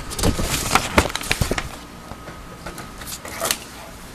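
Sheets of paper being handled and moved on a desk: a cluster of crackles and rustles over the first second and a half, then another short rustle about three and a half seconds in.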